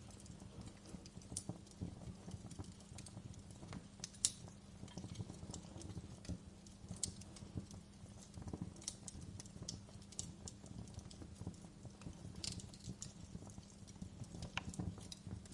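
Wood fire crackling in a fireplace: irregular pops and snaps over a low steady rumble, with a few sharper, louder pops among them.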